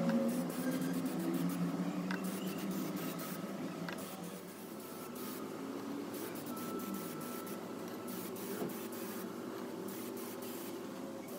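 Aerosol spray-paint can hissing in repeated short bursts, over a steady low hum.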